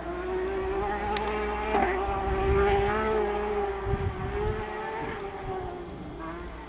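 Rally car engine heard from a distance, a buzzing high-revving note that swells about two to three seconds in and then fades away.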